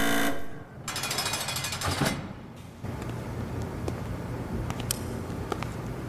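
Science-fiction sound effects: a loud buzzer tone that cuts off about half a second in, then about a second of rapid rattling machine buzz, settling into a steady low hum with faint clicks.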